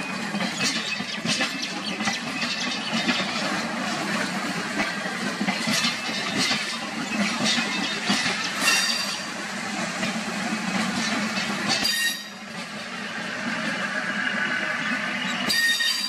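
Diesel-electric multiple unit (DEMU) train running past on the track: a continuous rumble with wheels clattering over rail joints and a few brief high-pitched wheel squeals.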